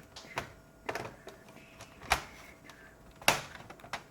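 A few sharp clicks and knocks from a laptop's parts being handled and fitted by hand during reassembly, the two loudest about two and three seconds in.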